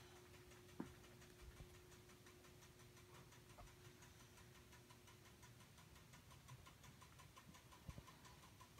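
Near silence: faint room tone with a faint, regular ticking and a couple of soft clicks.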